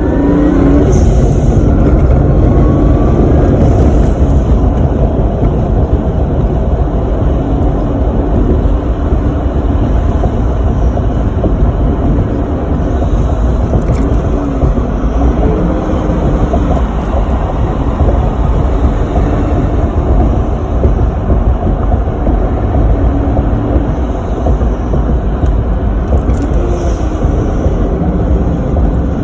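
Supercharged 2JZ-GE straight-six in a Lexus IS300 running while the car is driven on low boost, with rising engine tones near the start. A few short hisses, the HKS SSQV blow-off valve venting with its option fin fitted, come at about 1, 4, 14 and 27 seconds.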